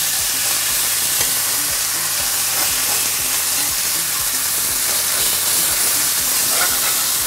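Smashed beef burger patties sizzling steadily on a hot cast-iron griddle, just flipped, with faint scattered crackles.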